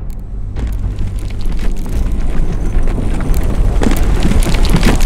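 Designed sound of stone crumbling: a deep rumble that builds steadily, with cracking and falling debris growing denser toward the end.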